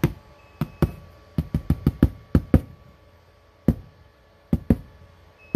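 A hand knocking on a cardboard box: sharp, hollow knocks in irregular groups, some in quick runs of three or four.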